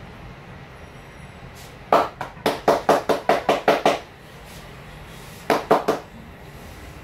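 Barber's hands striking in quick rhythmic massage strokes: a fast run of about ten slaps, some five a second, then a short run of about four more a second and a half later.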